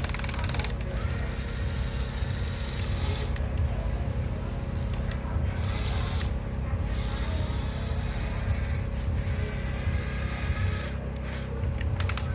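Small motors of a radio-controlled model excavator whirring, with rubbing and scraping, over a steady low rumble.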